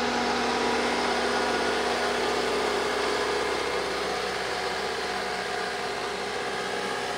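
Caterpillar 242D skid steer's diesel engine running as the machine drives past, loud at first and slowly fading as it moves away.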